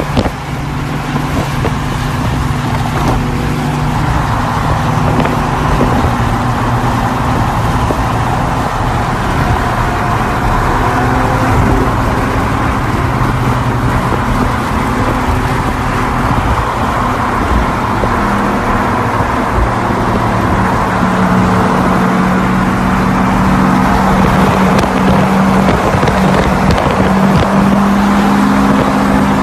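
Highway driving noise from beside another car: a steady engine drone with tyre and wind roar as supercars run alongside, first a McLaren Senna, then a Porsche 911 GT2 RS. The engine tone changes about two-thirds of the way through.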